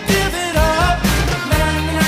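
Background pop music with a steady beat and a wavering melody line over repeated bass notes.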